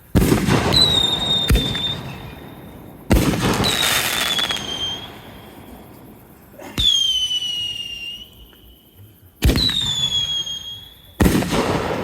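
Consumer canister firework shells going off one after another: about five sharp bangs a few seconds apart, each followed by a high whistle that slowly falls in pitch.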